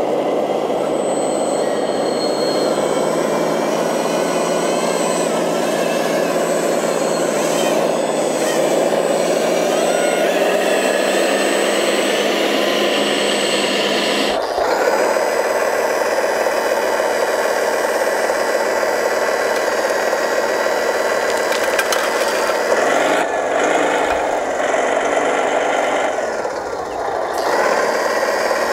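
Motors of radio-controlled scale construction machines running steadily. The sound changes abruptly about halfway through.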